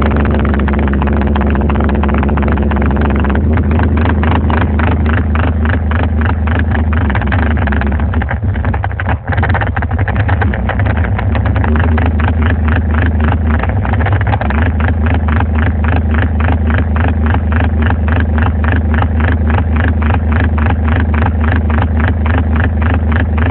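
Electronic music played very loud through a car sound system with two subwoofers. The bass is heavy and the beat is fast and steady, with a brief drop about nine seconds in.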